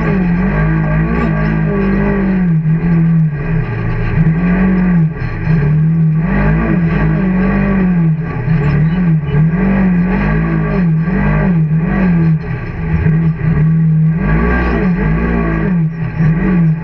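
Engine of a Can-Am off-road racer running hard, heard onboard, its pitch rising and falling again and again as the throttle is worked over sand dunes.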